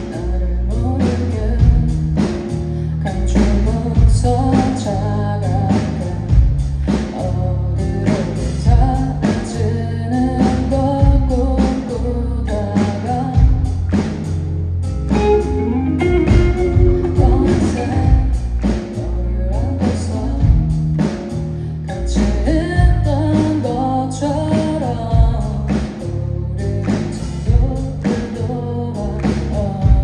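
Live band music: electric guitar and a drum kit keeping a steady beat under heavy low notes, with a woman singing at the microphone.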